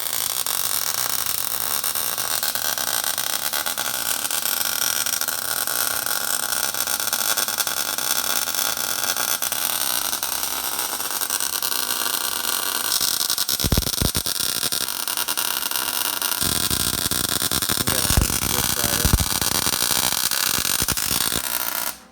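Electric arc welder running a continuous bead on the rack mounting bracket against the car's frame: a steady crackling hiss with a few sharp pops that stops suddenly near the end as the arc is broken.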